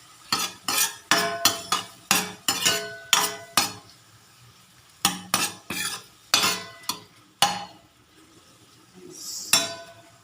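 Utensil stirring in a cooking pan: repeated sharp clinks and scrapes against the pan, in two quick runs with a short pause between, and a softer scrape near the end.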